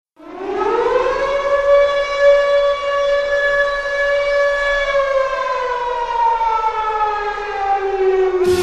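Brampton Battalion hockey goal horn: one long siren-like blast that rises in pitch over the first second, holds steady, then slowly sags in pitch over its last few seconds. Rock goal music cuts in just as it ends.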